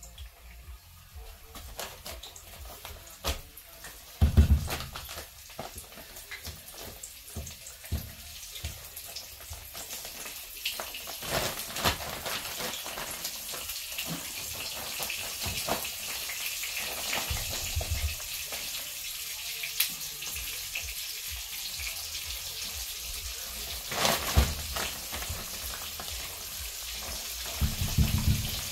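Chicken frying in hot grease in a pan: a crackling sizzle that grows steadily louder, with a few dull knocks.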